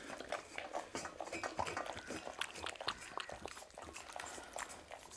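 Cats lapping goat's milk from ceramic bowls: a quick, irregular run of small wet licking clicks.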